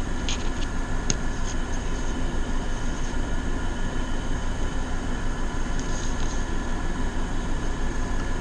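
Steady hum and whir of two room air conditioners running, with a few faint light clicks near the start and again about six seconds in.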